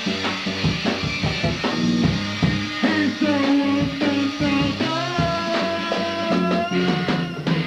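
Lo-fi rock band music in an instrumental passage: guitar notes held and sliding over a bass line, with steady drum hits.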